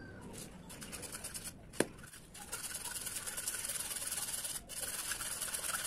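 Hacksaw cutting through PVC pipe in quick back-and-forth strokes, lighter at first and then steadier and louder from about halfway in, with one sharp click just under two seconds in.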